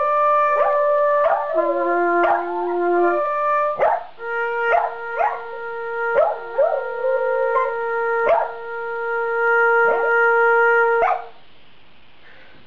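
A corgi howling along to an instrument playing long held notes; the howls waver in pitch, breaking in and out between the notes. The playing stops about eleven seconds in.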